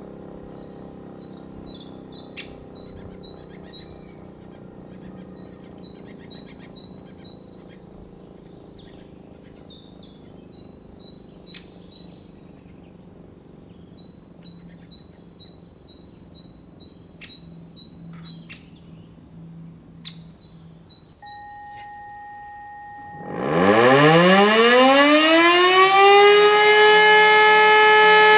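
A bird sings runs of short high chirps over a quiet background, then a brief steady tone sounds. Near the end an Elektror E57 motor siren starts up: its howl winds up steeply in pitch over about two seconds, then holds a steady, loud note.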